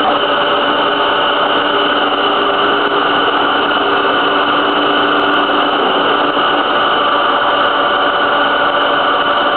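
Formula One car's 2.4-litre V8 idling steadily, a loud even drone at constant pitch with no revving.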